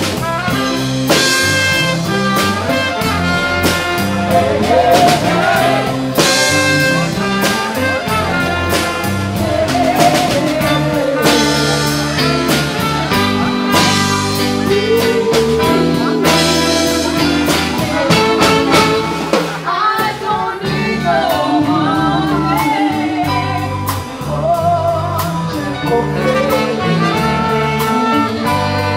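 Live band playing: a horn section of trumpets and saxophone over a drum kit with cymbals and electric guitar, with a singer's melody on top.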